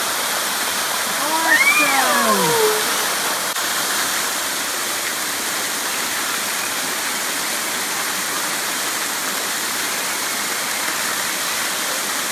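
Steady rush of falling water from pool waterfalls and splash-pad water jets. About a second and a half in, a child gives one high-pitched squeal that rises and then falls.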